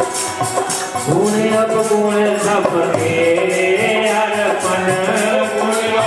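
Himachali devotional kirtan music: a melody over a steady, even beat of jingling hand percussion.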